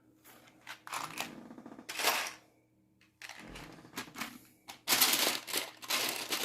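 Plastic Lego pieces clicking and rattling as they are handled, in short bursts, with a longer, louder stretch of rattling about five seconds in.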